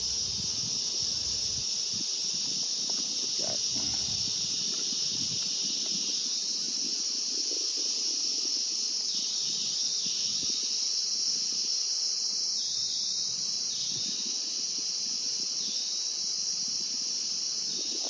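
Steady high-pitched shrilling of insects, with a second, slightly lower shrill layer joining about six seconds in. Underneath it, a softer low hum of honey bees and handling noise as a frame is prised up and lifted out of the hive box.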